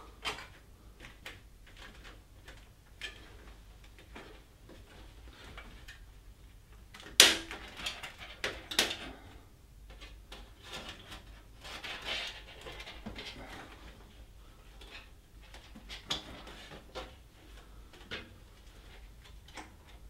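Scattered clicks and knocks of hands working a metal I/O shield into the rear panel of a PC tower case, with two sharper knocks about seven and nine seconds in.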